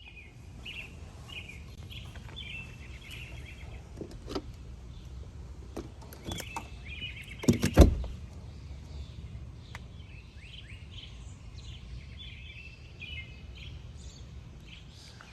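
Small birds chirping over a steady low outdoor rumble, with one loud sharp thump about halfway through.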